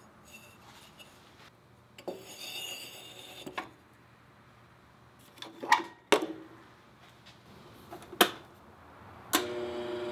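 A crucible and its lid being set into a small electric melting furnace: a scrape and several knocks of the parts going together. About nine seconds in there is a click and the furnace's steady electrical hum starts as it powers up to melt the bronze.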